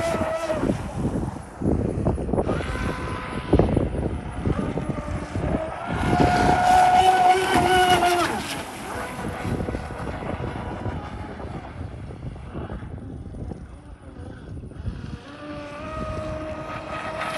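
Pro Boat Zelos 48 RC catamaran's twin brushless motors, run on an 8S battery, whining at speed as the boat makes passes. The whine is loudest about six to eight seconds in, dies away as the boat runs off, and comes back near the end.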